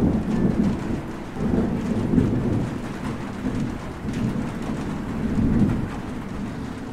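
Thunderstorm sound: steady rain with thunder rumbling in several swells.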